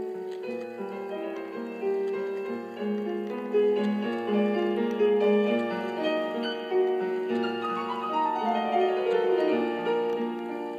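Background piano music: a flowing melody of many notes, with a descending run near the end.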